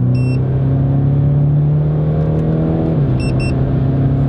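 Tuned Audi SQ5's engine pulling hard under full throttle in a timed 80–120 km/h acceleration run. Its pitch climbs steadily, drops at an upshift about three seconds in, then climbs again. Short electronic beeps sound once near the start and twice around the shift.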